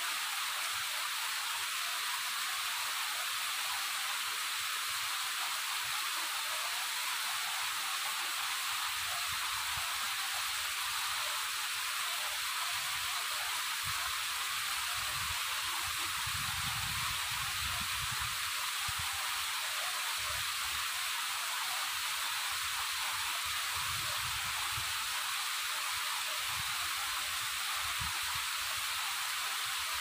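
Waterfall rushing in a steady, even hiss, with soft low rumbles coming and going from about ten seconds in.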